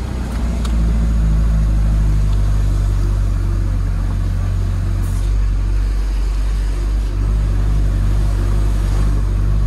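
Engine and road noise of a vehicle being driven, heard from inside the cab: a steady low drone that grows louder about a second in and then holds.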